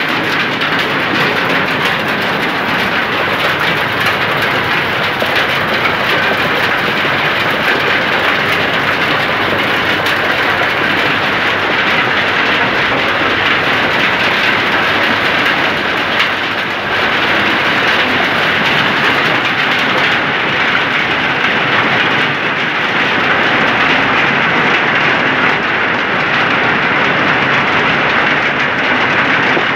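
Heavy hail pelting a paved street: a dense, steady clatter of hailstones.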